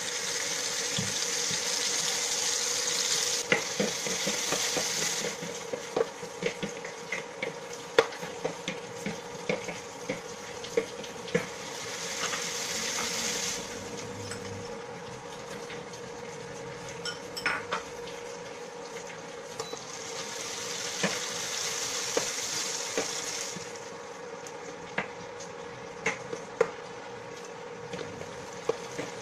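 Onion, garlic and tomatoes sizzling in oil in a stainless steel pot while a wooden spoon stirs them, scraping and knocking sharply against the pan. The sizzle swells in three stretches and dies back between them, over a faint steady hum.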